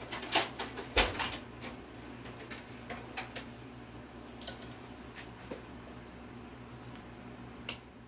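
Metal hand tools clattering on a workbench as a pair of pliers is picked up and handled: a few sharp knocks in the first second or so, scattered clicks after, and one more sharp click just before the end.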